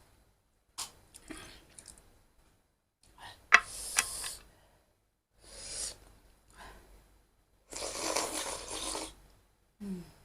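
Close-miked eating sounds: a series of short slurps and bites with gaps between them, two sharp clicks a little before halfway, and a longer noisy slurp near the end.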